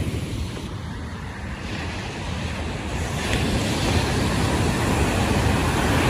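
Ocean surf with wind buffeting the microphone: a steady rushing noise that grows louder about halfway through.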